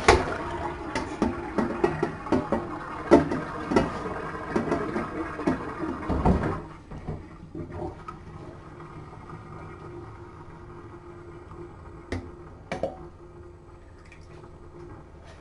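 Water running from a tap, with small splashes and knocks, that stops about six and a half seconds in; after that only faint background hum and a couple of light knocks.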